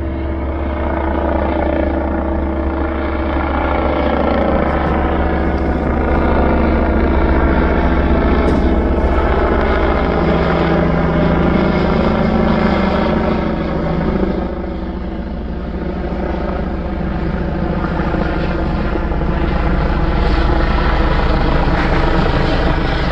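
Helicopter in flight, its rotor and engine sound steady and loud, easing off briefly about fourteen seconds in and then building again.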